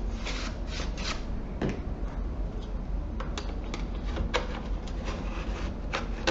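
Dust being brushed or wiped off the console's plastic: soft rubbing strokes, then a few light clicks of the parts being handled.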